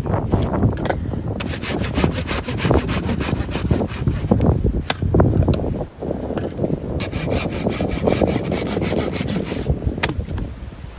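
Hand saw cutting through wood in a run of rasping strokes, with a brief pause midway.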